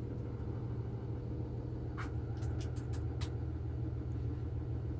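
A vehicle engine idling with a steady low rumble, with a few light clicks about two to three seconds in.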